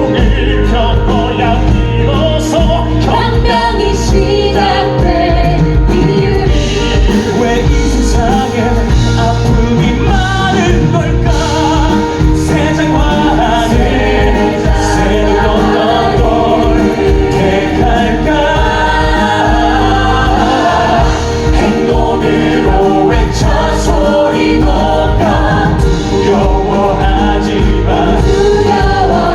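Musical theatre cast singing together live in Korean over a band accompaniment, several voices in chorus.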